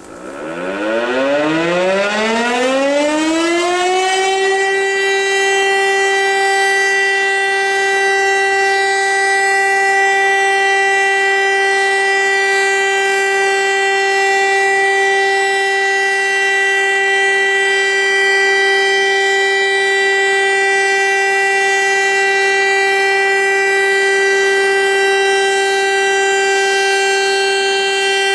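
VEM DS 977 electric mechanical civil-defence siren starting up for a test: its rotor winds up, the tone climbing in pitch over about four seconds, then it holds one loud, steady tone at full speed.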